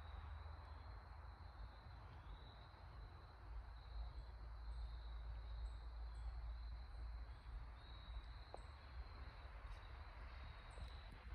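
Quiet woodland ambience: a low rumble on the microphone, a faint steady high-pitched trill and a few faint short chirps.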